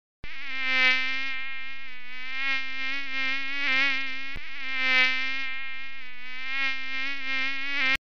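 A flying insect's wings buzzing in a steady, slightly wavering drone. It cuts with a click about four and a half seconds in and starts again with the same pattern, as a looped recording.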